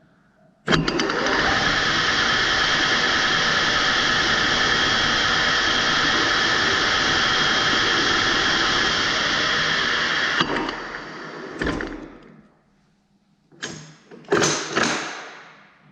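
Metal-working lathe spindle and gearbox starting abruptly and running at a steady speed with a steady gear whine, then switched off and running down. A few sharp knocks follow near the end.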